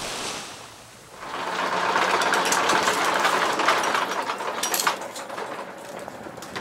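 Catamaran's electric anchor windlass hauling in the anchor chain: a steady motor whir starting a little over a second in and stopping about five seconds in, followed by light metallic clinks of the chain.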